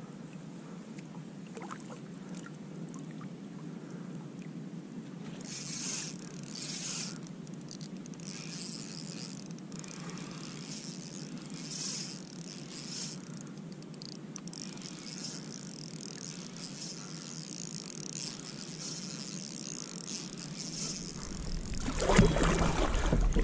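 Steady soft hiss of wind and water around a kayak, with patches of higher hiss, swelling suddenly into a louder rush of noise in the last second or two.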